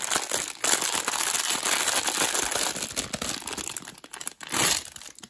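Foil blind-box bag crinkling as it is crumpled and opened by hand. It makes a dense, crackly rustle that thins out after about four seconds, with one more short rustle near the end.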